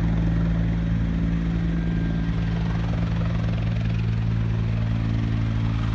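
Yellow emergency rescue helicopter running steadily nearby, its rotor and turbine engines making a constant low drone that does not change.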